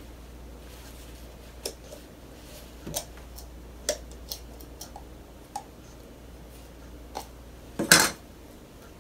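Hollow plastic toy egg twisted and pried open by hand: scattered small plastic clicks and taps, with one louder clack near the end.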